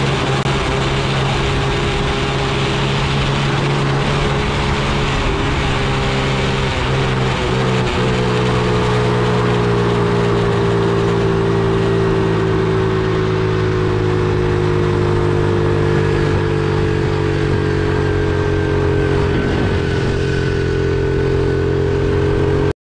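50cc four-stroke single-cylinder engine of a Chinese Honda Monkey replica mini bike running steadily while riding, with wind rushing past; its pitch sinks slowly in the second half, and the sound cuts off suddenly near the end.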